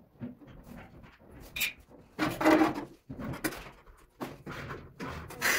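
Large ceramic tile being slid into place on a manual rail tile cutter: a string of scrapes and knocks as tile and cutter are moved about, the longest and loudest scrape about two seconds in.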